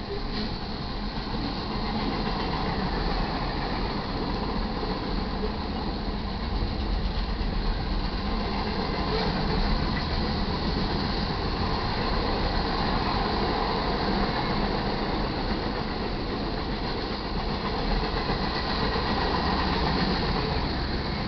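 Mixed freight cars of a manifest train rolling past a grade crossing: a steady rumble and rattle of steel wheels on the rails.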